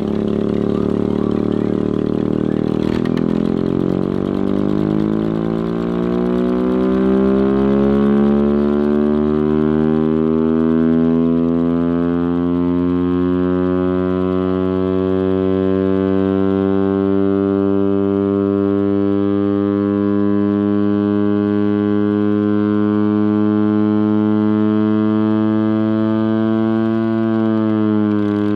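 Chrysler air raid siren running on its Hemi V8 engine. Its deep siren tone climbs in pitch over the first several seconds as it winds up, then holds steady over the engine's drone. Near the end the pitch dips briefly and recovers.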